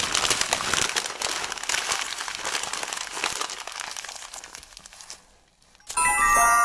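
A large sheet of drawing paper crumpled into a ball by hand: dense crackling and crinkling that tapers off after about five seconds. Near the end a bright chime of several high ringing tones comes in.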